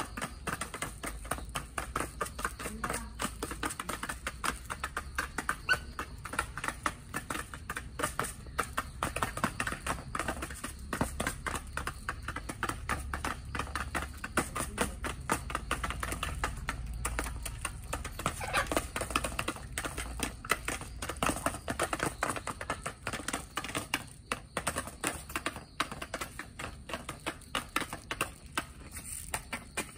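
Several chickens pecking feed, their beaks tapping rapidly and unevenly at the ground and a metal feeder pan.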